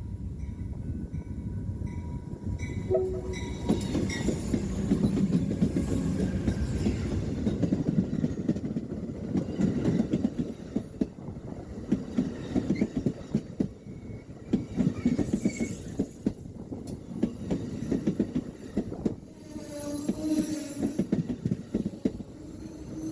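Amtrak California Zephyr passenger train rolling past close by: a heavy rumble of steel wheels on rail with rapid clacking over the rail joints, swelling a few seconds in.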